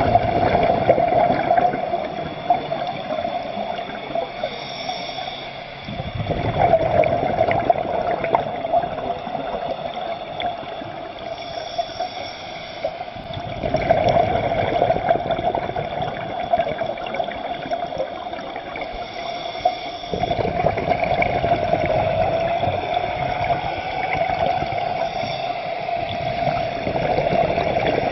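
Underwater sound of a scuba diver breathing: bubbly, gurgling exhalations surging about every six to seven seconds over a steady rush of water.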